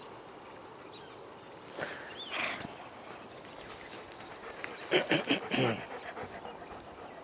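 Crickets chirping in a steady, fast pulsing rhythm, with a short cluster of louder voice-like sounds about five seconds in.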